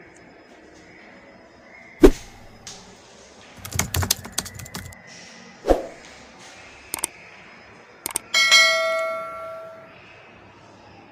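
Subscribe-button animation sound effects: sharp clicks, including a quick run of keyboard-like clicks, then a bell ding near the end that rings out and fades over about a second and a half.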